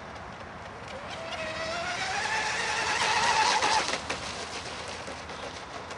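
Sigma Evo RC speedboat's motor whining as it runs at speed across the water, rising in pitch and getting louder, then falling away abruptly about four seconds in.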